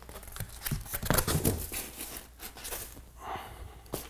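Cardboard box of a tower speaker being rolled over and pulled off the plastic-bagged speaker: cardboard scraping and rustling, plastic crinkling, and a few soft knocks, busiest about a second in.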